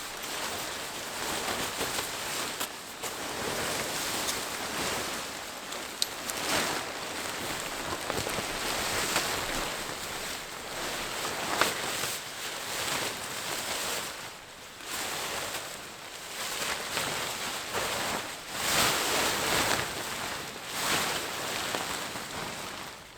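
Wind rushing through the forest trees, rising and falling in gusts over several seconds, with a few brief clicks.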